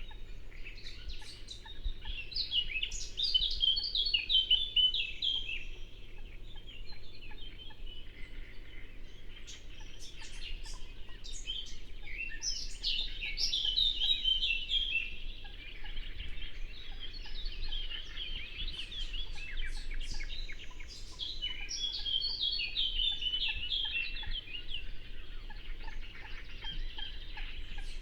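A songbird singing repeated phrases of quick notes that step down in pitch, one every several seconds, with short chirps from other birds between them. Under the song runs a faint steady low rush of the river.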